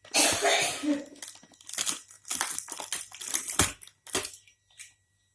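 Toy packaging crinkling and rustling in irregular bursts as it is handled and opened, stopping a little after four seconds in.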